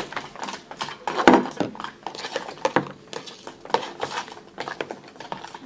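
Spoons stirring a mix of shaving foam and glue in plastic tubs: an irregular run of scrapes and light knocks of utensil on plastic, the loudest about a second in.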